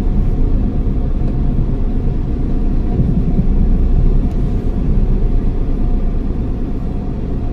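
Car driving over a rough dirt track, heard from inside the cabin: a steady low rumble of engine and tyres.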